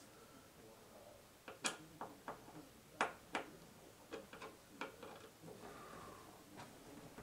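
Faint, irregular clicks and knocks of curtain-rod hardware being fitted into place, about a dozen over a few seconds, the loudest two near the start.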